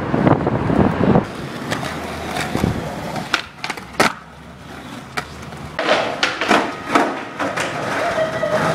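Skateboard sounds: urethane wheels rolling on pavement and several sharp clacks of the wooden deck striking the ground. The clacks come around the middle and again a few seconds later.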